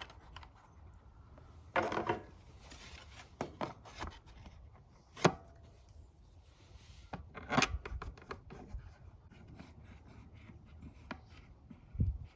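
A new air filter and the parts of a generator's air filter housing being fitted by hand: scattered clicks, knocks and rubbing, the sharpest knock about five seconds in and a dull thump near the end.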